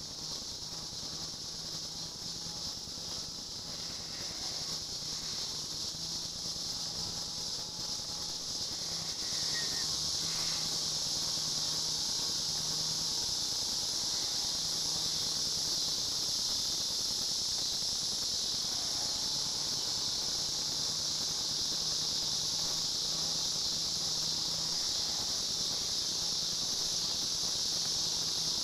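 A steady, high-pitched insect chorus that grows louder about ten seconds in and then holds.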